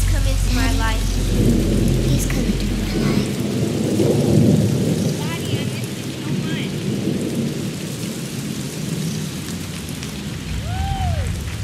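Audience applauding and cheering: a dense, even clatter of many hands with scattered voices, and a single rising-and-falling whoop near the end.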